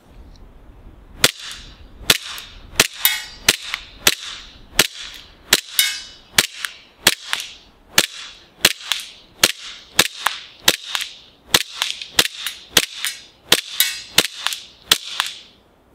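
KWA Beretta M9 gas blowback airsoft pistol firing a full magazine of about two dozen shots, roughly two a second. Each shot is a sharp pop with the slide cycling. The shots start about a second in and stop just before the end. A few shots are followed by a short metallic ringing as BBs strike the metal target backing.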